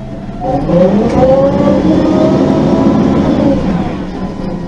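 The LPG engine and Voith automatic transmission of a MAN NG 273 articulated city bus, heard from on board, accelerating. The pitch climbs over about a second, holds, then sinks and quietens near the end.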